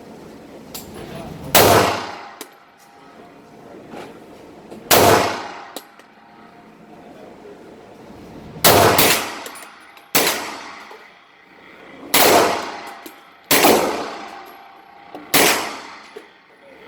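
Gunshots fired one at a time, seven reports at irregular intervals of one and a half to three and a half seconds, each ringing out briefly. Faint small clicks come between them.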